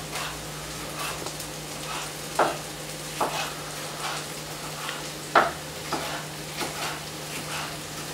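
Chef's knife slicing through vegetables and tapping a wooden cutting board in separate strokes about once a second, two of them louder, over a steady hiss and low hum.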